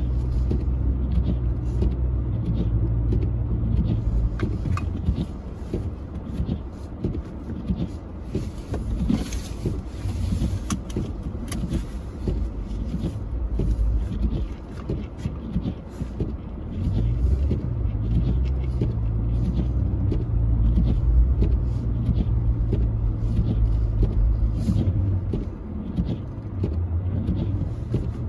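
Car engine running hard, a low steady drone that is louder at the start and again through a long stretch in the second half.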